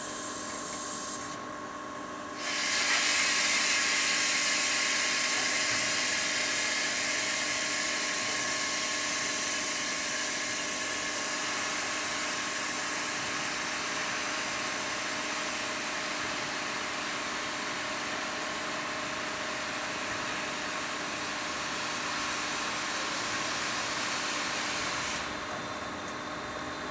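SNCF 241P steam locomotive venting steam: a loud, steady hiss sets in about two seconds in, holds for some twenty seconds and then drops back, over a faint steady hum.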